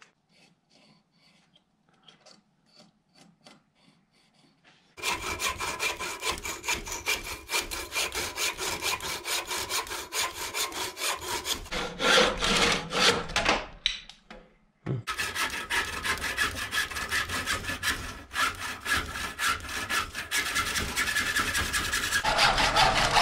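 Husky hand saw cutting through a wooden axe handle clamped in a bench vise, trimming the handle down to size, in rapid back-and-forth strokes that start about five seconds in and pause briefly about two-thirds of the way through. Before the sawing, a few faint light clicks.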